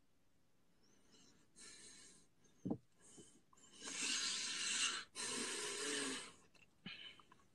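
A person crying with his face in his hands: a few long, ragged, heaving breaths, the longest about a second each, in the middle of the stretch. There is a short thump a little before the first long breath.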